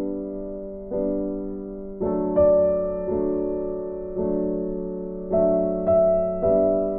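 Background piano music: slow, soft chords struck about once a second, each fading before the next.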